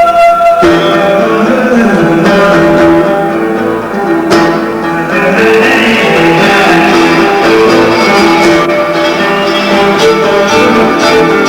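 Live free-improvised music: a guitar playing, with long held string notes over it and a short downward slide about a second and a half in.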